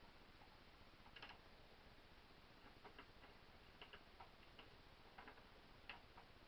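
Faint, irregular clicks and light taps of small metal parts and tools being handled while a Winchester 1977XS air pistol is reassembled, about ten in all, over low room hiss.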